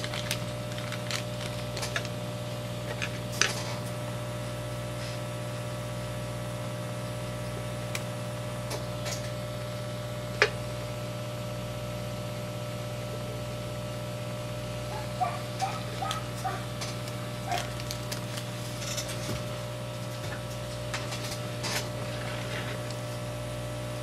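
Steady electrical hum from the microsoldering bench equipment, with scattered light clicks and taps of a small part being handled with tweezers. The sharpest click comes about ten seconds in, and a run of small ticks follows a few seconds later.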